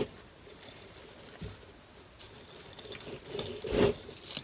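Hands rustling through the artificial flocked pine branches of a wreath, bending and moving them. The crackling is light at first and busiest near the end, with a couple of soft knocks.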